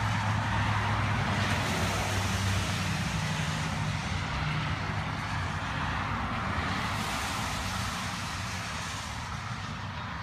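A steady vehicle rumble with a low hum. Two swells of hiss come and go, about a second and a half in and again about seven seconds in, and the sound fades a little near the end.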